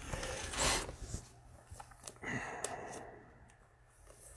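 Trading-card packs and cards being handled: a short rustle of pack wrapper under a second in, then a few light clicks and soft shuffling that fade out.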